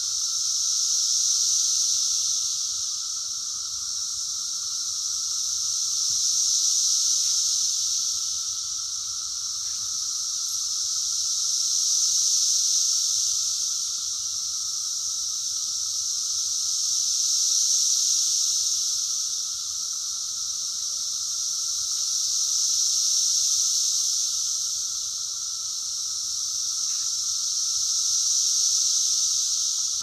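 Chorus of 17-year periodical cicadas: a loud, shrill drone that swells and fades in slow waves about every five to six seconds, with a fainter, lower steady drone underneath.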